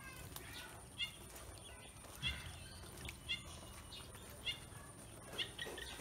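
Pekin ducklings peeping: short, high calls that bend downward, about once a second.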